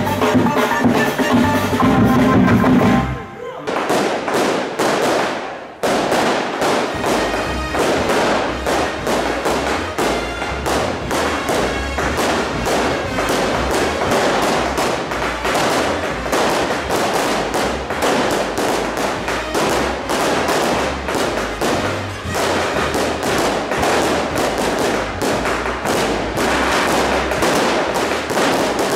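Music for about three seconds, then a long string of firecrackers going off in a dense, rapid crackle of bangs that keeps going to the end.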